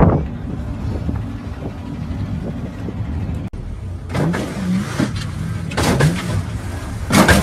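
Lowrider car's engine running, then several short bursts of noise with brief rising whines as the car is worked up onto three wheels on its hydraulic suspension.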